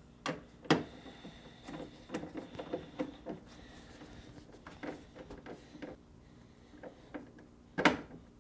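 Irregular clicks and knocks of a hand tool and metal hardware while the freezer door's mounting bolts are tightened, with two sharper knocks, one about a second in and one near the end.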